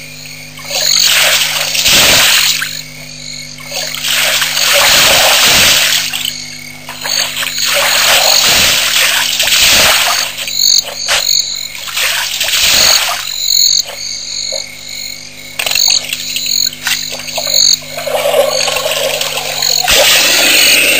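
Frogs croaking at a waterhole, with repeated loud bursts of splashing and gushing water every few seconds as an African elephant drinks, drawing water up its trunk and emptying it into its mouth.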